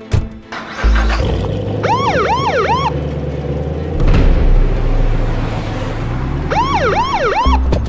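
Police car sound effect: a car engine starts and runs with a low rumble that grows louder about four seconds in, while a police siren gives two short bursts of three quick rising-and-falling whoops, one near two seconds in and one near the end. A short knock sounds at the start.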